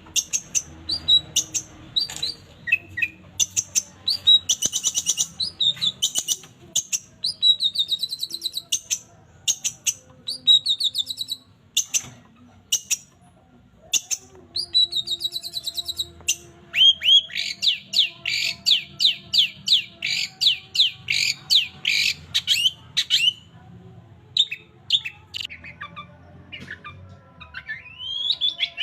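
Long-tailed shrike (cendet) singing a varied song of short, sharp chirps and trills, with a long, fast run of repeated notes in the middle.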